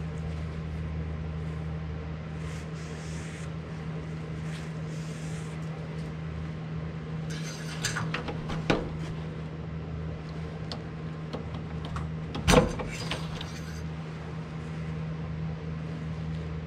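Engine oil dipstick being wiped, slid back into its metal tube and drawn out again: a few light metallic clicks and scrapes about eight seconds in and a sharper knock about twelve seconds in. A steady low hum runs underneath.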